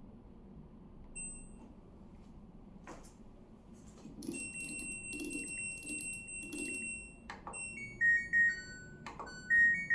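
LG washing machine control panel beeping as its buttons are pressed. There is a short beep, a button click, then a long steady beep while the buttons are held. After more clicks come a short falling three-note tune and a rising tune near the end. It goes with holding Rinse and Dry together to turn the washer's sounds back on.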